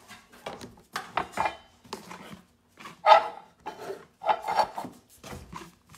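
Irregular scraping, rubbing and knocking of something being handled and moved about on a hard surface, in a few separate strokes, the loudest about three seconds in.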